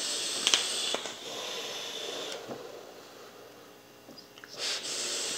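A long draw on a rebuildable vape atomizer: airflow hissing, with a few faint crackles from the coil, for about two seconds. About four and a half seconds in comes a strong, breathy exhale of vapor.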